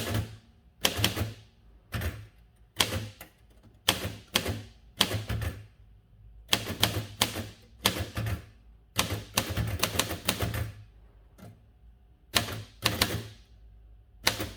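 1940 Royal Arrow manual portable typewriter being typed on: its keys and typebars strike the platen in quick runs of sharp clacks, with short pauses between the runs.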